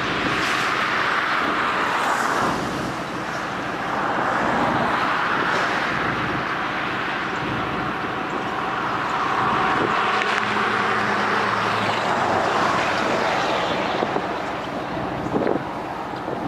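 Vehicle driving on the road: a steady rush of tyre and engine noise that swells and eases several times.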